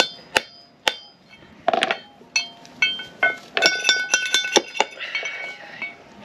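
Steel hammer and drift striking the wheel-bearing race inside a caravan's brake drum hub, metal on metal with a bright ringing after each blow. A few single strikes come first, then a quick run of taps about three and a half seconds in.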